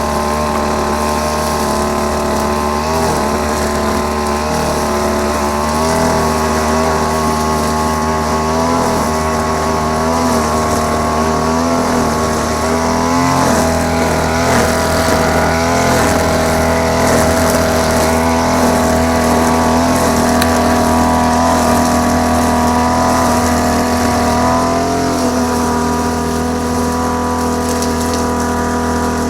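Small petrol engine of a grass-cutting machine running steadily under load, its pitch wavering slightly as it cuts, a little louder from about halfway through.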